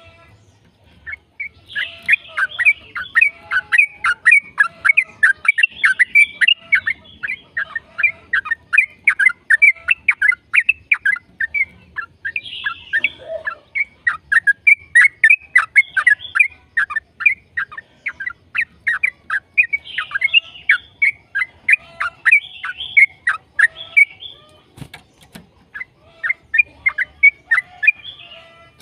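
Yellow-vented bulbul singing a long, fast run of sharp chattering notes, several a second. The song pauses briefly about a second in and again near the end.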